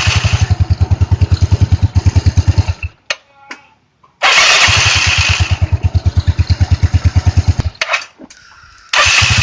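Yamaha Mio/Fino scooter's electric starter cranking the engine in fast, even pulses, twice for about three seconds each with a pause between, then a third crank near the end, after a new one-way starter clutch has been fitted to cure a harsh starter noise.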